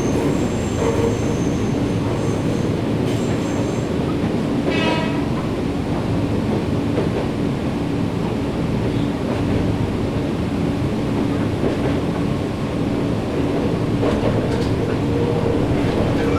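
Nankai 7100-series electric train running at speed, heard from inside the passenger car: a steady rumble of wheels on rail with a motor hum. A faint high wheel squeal comes in the first few seconds, and a brief high tone about five seconds in.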